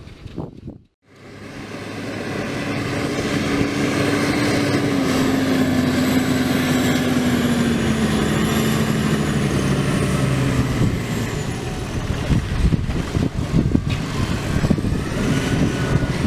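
Same Diamond 265 tractor's Deutz 1013 six-cylinder diesel running under ploughing load; its pitch falls slowly, and irregular knocks follow in the last few seconds.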